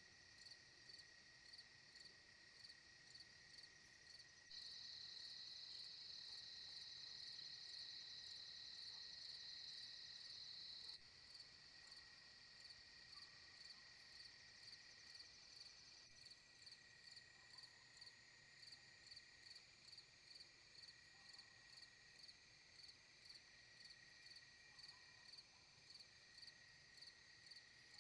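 Faint night chorus of crickets: steady high trilling with a regular pulsing chirp. A louder continuous trill joins about four seconds in and cuts off suddenly around eleven seconds.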